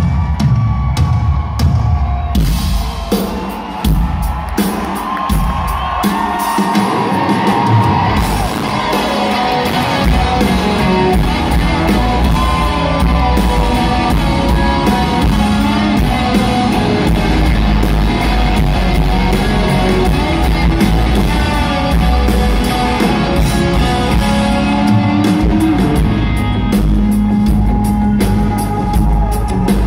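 Live rock band heard through an arena PA from the stands: a few seconds of drum kit hits with gaps between them, then about eight seconds in the full band comes in with electric guitars and bass and plays on loudly, with crowd yells mixed in.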